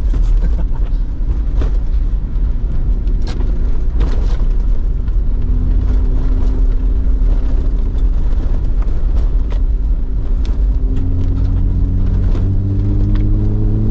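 A 4WD driving on a wet dirt track: a steady low rumble of engine and tyres, with scattered sharp knocks from the rough surface. About eleven seconds in the engine note strengthens and climbs steadily as the vehicle speeds up.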